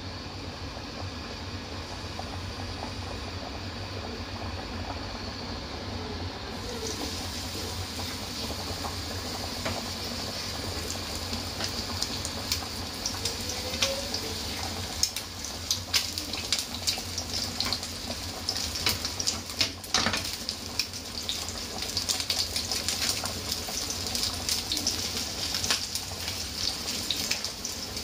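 Chicken wings frying in oil in a pan: a steady sizzle sets in a few seconds in, with spitting crackles that come more often later on, over a steady low hum.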